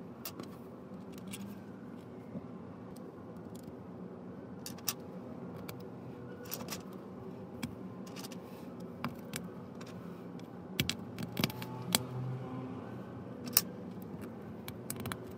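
LEGO Technic plastic pieces clicking and rattling as connector pins are pressed into beams by hand: scattered sharp clicks, with a quick cluster of louder ones about three-quarters of the way through.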